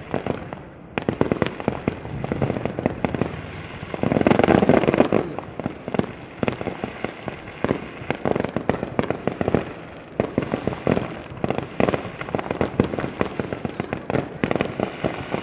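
Fireworks display: a rapid, continuous string of bangs and crackles, densest and loudest about four seconds in.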